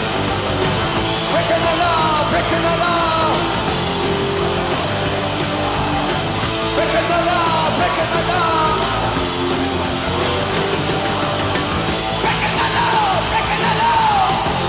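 Live heavy metal band playing with distorted electric guitars, bass and drums. High, wordless vocal wails glide and waver over the band three times, about a second and a half in, around the middle and near the end.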